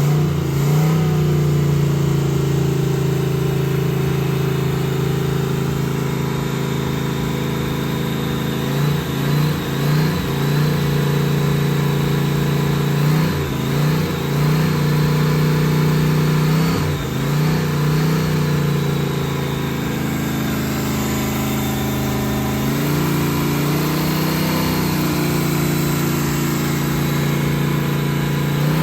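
Crusader 454 big-block V8 marine engine, freshly rebuilt after a broken piston, running steadily on its test run. Its pitch dips and rises briefly several times in the middle, as the throttle is blipped. It sounds pretty good.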